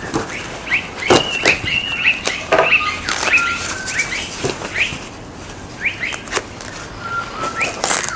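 Birds calling with repeated short, rising chirps, mixed with scattered sharp clicks and knocks, the loudest about a second in and near the end.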